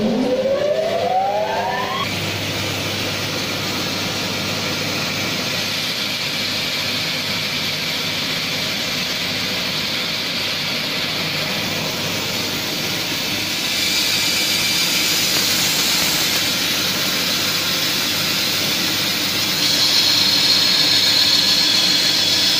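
Cosen CNC curve band saw resuming its cut: a motor whine rising in pitch over the first two seconds as the machine speeds up, then steady running as the blade saws a curve through a wooden board. The cutting noise grows louder and hissier at about fourteen seconds and again near the end.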